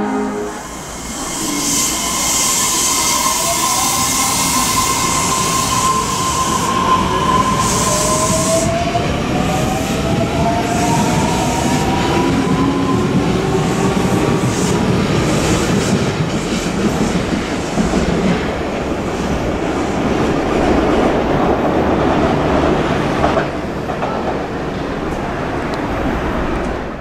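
Osaka Metro 400 series train's Hitachi hybrid SiC-VVVF inverter and traction motors pulling away. A steady high tone holds for the first several seconds, then several tones rise in pitch as the train gathers speed, over running wheel-and-rail noise.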